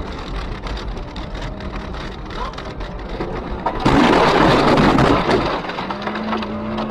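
A car ploughing into deep snow: a low rumble, then about four seconds in a loud rush of snow spraying over the windscreen for about two seconds, followed by a steady low hum.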